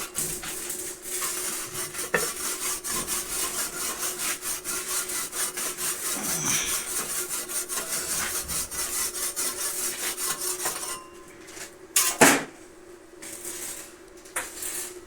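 Hand saw cutting in quick, even strokes that stop about eleven seconds in, followed by a single loud knock. A steady low hum runs underneath.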